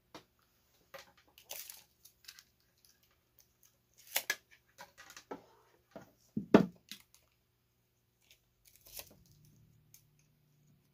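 Rustling and clicking of a power-adapter cable being handled and stretched out for measuring, in scattered short bursts with a louder knock about six and a half seconds in.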